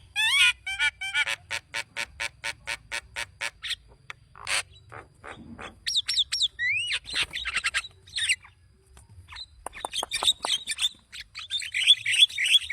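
Javan myna calling in a long, varied run: a string of short, evenly spaced harsh notes at about three to four a second, then rising whistles and chatter, ending in a quick run of repeated notes.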